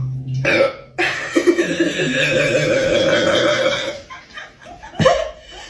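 A long, loud burp of about three seconds, followed by laughter.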